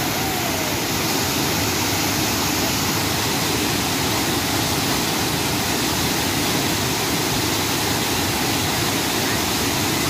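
Waterfall crashing into a plunge pool: a steady, unbroken rush of falling water.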